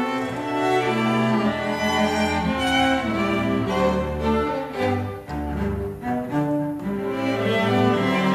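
String quintet of two violins, viola, cello and double bass playing bowed, with held notes that change pitch and a steady low bass line beneath.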